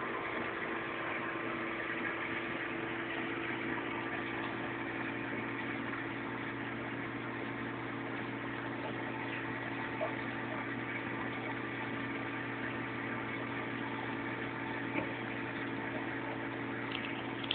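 Reef aquarium's pumps and filtration equipment running: a steady hum with several constant tones over a continuous hiss of moving water.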